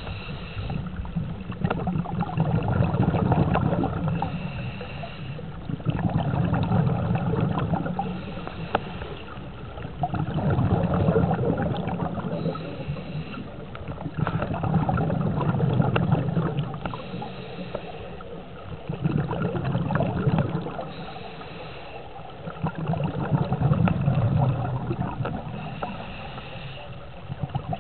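A scuba diver breathing through a regulator underwater. A short hiss on each inhalation is followed by a long rumble of exhaled bubbles, and the cycle repeats about every four seconds.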